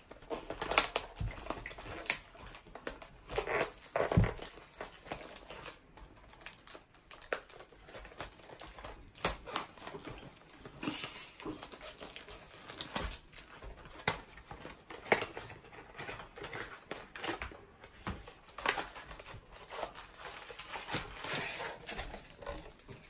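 Plastic wrapping and cardboard of a box of baseball cards being torn and crinkled open by hand: irregular crackles and small clicks.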